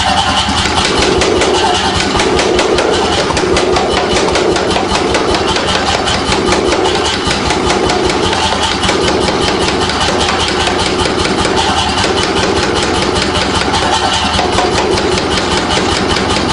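Power hammer running and striking a red-hot round steel bar in rapid, steady blows, drawing the bar out to a point.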